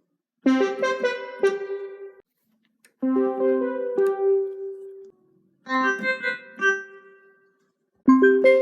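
The Samsung notification melody played as a short ringing phrase three times, each time in a different instrument sound, mostly piano-like. A fourth playing begins near the end.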